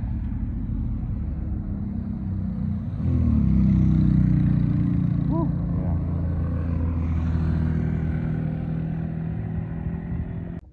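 Road traffic on a steep uphill street: a car passes, then a motorcycle engine pulls up the incline, louder from about three seconds in and running steadily before the sound cuts off at the end.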